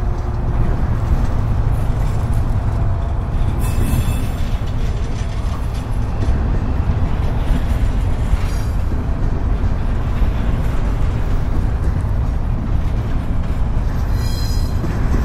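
Norfolk Southern freight train rolling past on the track, a steady heavy rumble of wheels on rail, with brief high-pitched wheel squeals about four seconds in and again near the end.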